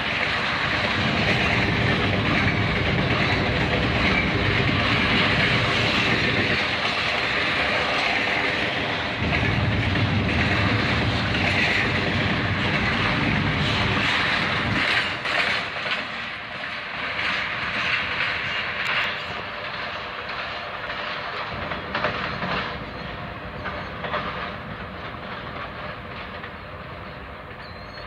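Kansas City Southern double-stack intermodal freight train rolling past close by, a loud, steady rumble of well cars on the rail. After about fifteen seconds, as the train's end passes, the sound thins and fades, leaving separate wheel clicks and knocks over the rail joints.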